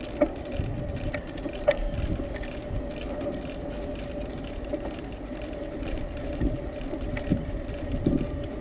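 Bicycle rolling along a paved path: low tyre and wind rumble with a steady hum, and a few sharp clicks and rattles from the bike, the clearest near the start and about two seconds in.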